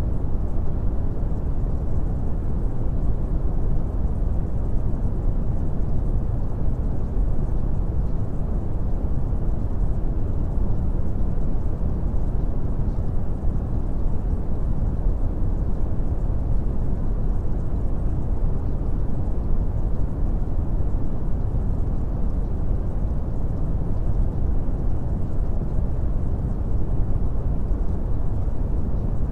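Steady brown noise: an even, unbroken rumbling hiss, heaviest in the lows and thinning out toward the highs.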